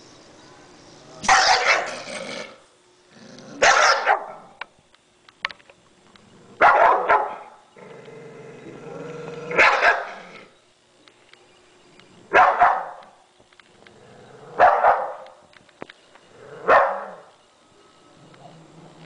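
A bull terrier barking in seven loud separate bursts, roughly one every two to three seconds, the vocal show it puts on at feeding time.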